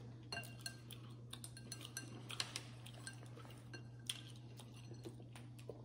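Faint, scattered clicks and clinks of glass bowls and utensils being handled and moved on a countertop, over a steady low hum.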